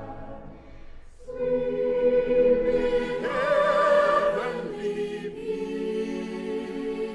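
A group of voices singing a slow carol in held chords, soft at first and swelling fuller after about a second. A higher voice wavers on a long note in the middle.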